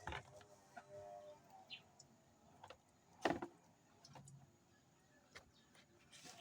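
A few faint, scattered clicks and knocks, with one sharper knock about three seconds in.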